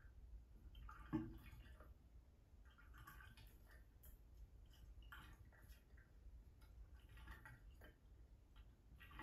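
Near silence, with faint, irregular ticks and one sharper soft knock about a second in.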